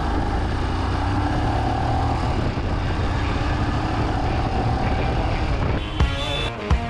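Royal Enfield Himalayan's single-cylinder engine running under way, mixed with steady wind rush on the chest-mounted camera's built-in microphone. About six seconds in, music with drum hits comes in.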